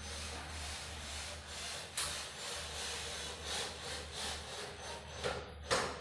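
Rough, rasping rubbing against gypsum ceiling board, swelling and fading in strokes, like hand sanding or scraping. There is a sharp knock about two seconds in and a louder one near the end, over a steady low hum.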